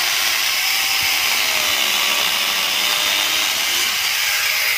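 Electric angle grinder fitted with a small chainsaw bar, running steadily as its chain cuts down through a mango log, the motor's pitch wavering slightly under the load.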